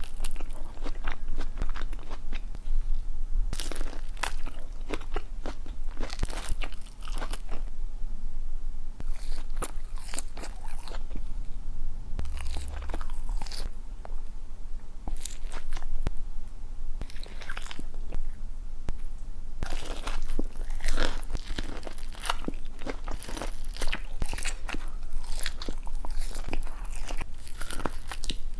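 Close-miked crunching and chewing of crispy fried chicken, bite after bite. The crunches thin out for a few seconds about midway, then come densely again.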